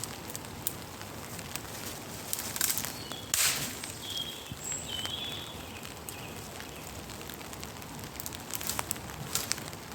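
Twigs and leaf litter rustling and cracking underfoot and in the hands, with a louder crackle about three and a half seconds in. A few short high chirps about four seconds in.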